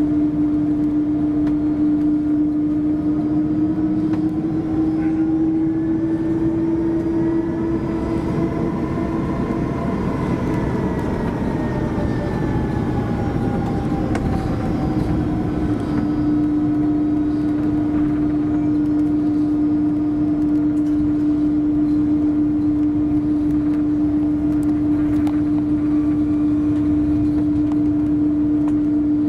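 Airbus A330-200's Pratt & Whitney PW4168A engines heard from inside the cabin: a loud, steady drone with a strong hum. Higher tones rise and fall in the middle, and the hum drops out then returns about halfway through.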